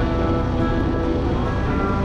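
Background music with long held notes over a steady low bass.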